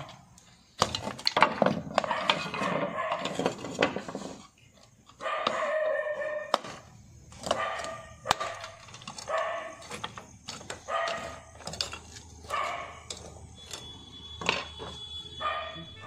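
A dog barking repeatedly, with clay roof tiles clattering and knocking as they are lifted and shifted.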